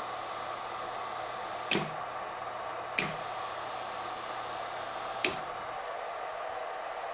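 Three sharp clicks over a steady hum, with a faint high whine sounding between the last two clicks.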